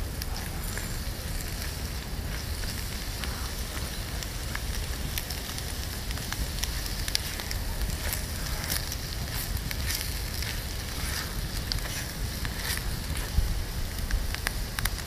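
Small wood fire crackling inside a titanium gasifier stove while bacon and eggs sizzle in a titanium frying pan on top, with scattered sharp ticks and a spoon stirring the pan. A low wind rumble on the microphone runs underneath.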